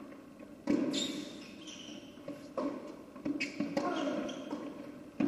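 Tennis ball struck by rackets and bouncing on an indoor hard court during a point: several sharp impacts a second or two apart, each echoing in the hall.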